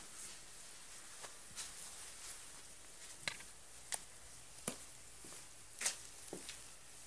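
Handling noise close to the microphone: scattered light clicks and rustles of a handheld camera and a puffy nylon coat moving against it, over a faint hiss.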